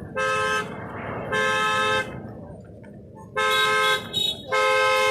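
Car horns honking in a run of separate toots, about five in a few seconds, one of them very short. Each toot is two steady notes sounding together.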